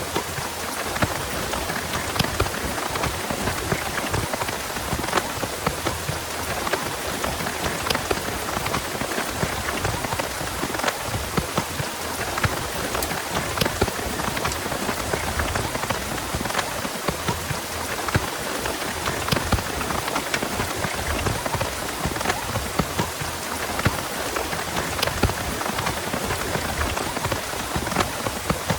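Heavy rain falling steadily, with many individual drops ticking sharply as they strike.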